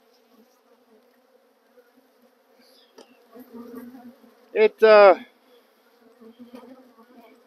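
Honeybees humming steadily around opened hives, stirred up by the inspection. About halfway through, a single bee buzzes loudly close by for under a second, its pitch sliding down twice as it passes.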